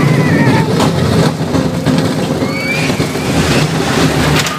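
Wild Mouse roller coaster car running along its steel track: a steady rumble and rush of noise as the ride moves, with faint high wavering squeals about two and a half seconds in.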